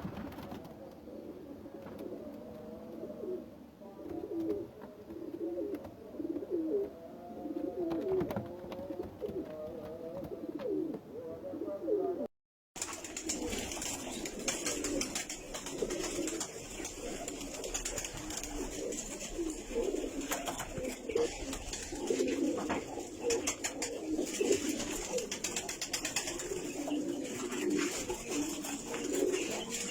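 Domestic pigeons cooing continuously, many low coos overlapping. The sound drops out briefly about twelve seconds in.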